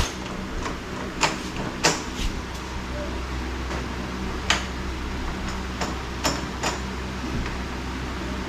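Irregular sharp clicks and knocks, about nine of them, from working on a broken door knob and its lock, over a steady low hum.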